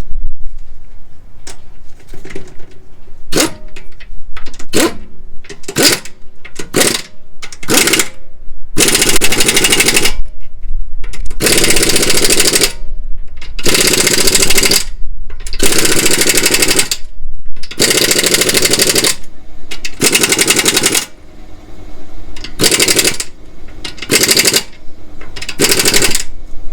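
Impact wrench hammering in repeated bursts. A few short blips come first, then a run of longer bursts of about a second each with short pauses between them, typical of running fasteners on or off during a suspension job.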